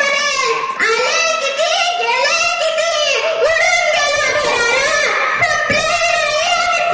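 A young girl's loud, high-pitched voice delivering lines in a sustained, sing-song way.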